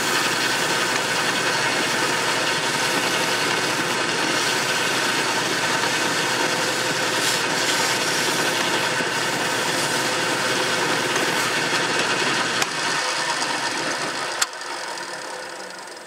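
Small wood lathe running steadily while 150-grit sandpaper is held against the spinning wooden knob. Near the end there is a sharp click and the motor winds down, fading out.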